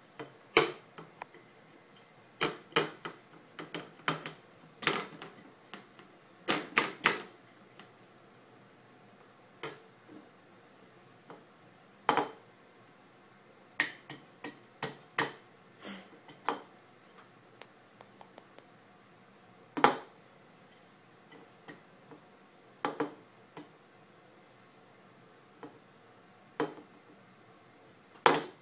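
A ceramic plate knocking and clattering against a plastic high-chair tray as a toddler handles it. The knocks are sharp and irregular, coming in quick clusters over the first several seconds and then more sparsely.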